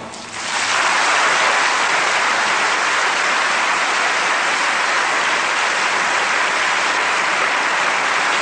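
Theatre audience applauding a ballet solo, breaking out about half a second in and holding steady.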